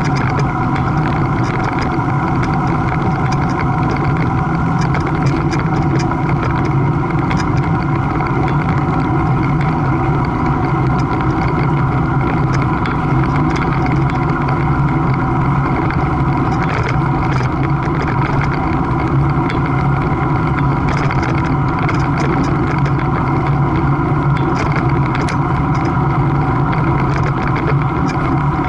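Steady mechanical drone made of several fixed tones, unchanging in pitch and level throughout.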